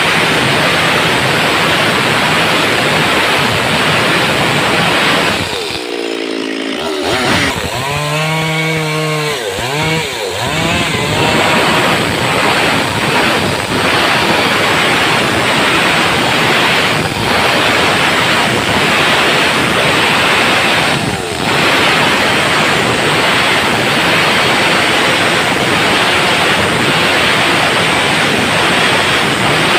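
Stihl MS 382 two-stroke chainsaw running flat out while ripping lengthwise along a timber beam. Around six seconds in, the engine note dips and rises a few times before steady cutting resumes.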